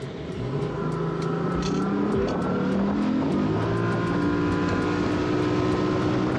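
Evinrude two-stroke outboard accelerating as the boat takes off: the engine note climbs in pitch for the first few seconds, then holds steady at cruising speed.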